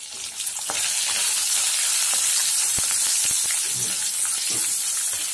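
Fresh curry leaves sizzling in hot oil in a metal kadai with dried red chillies, peanuts and chana dal: the tempering stage of pulikachal. The hiss swells about half a second in as the leaves hit the oil, while a wooden spatula stirs and scrapes with scattered light clicks.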